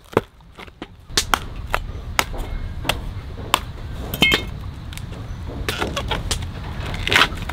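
Fan palm top being peeled by hand to reach the tender heart. The fibrous outer leaf bases give a series of sharp, irregular snaps and cracks over a low rumble, with a stretch of tearing about six seconds in.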